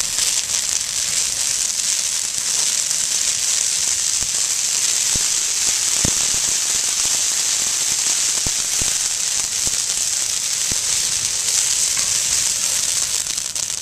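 Brush fire burning through live shrubs: a steady, dense crackling hiss with scattered sharp pops, the loudest about six seconds in.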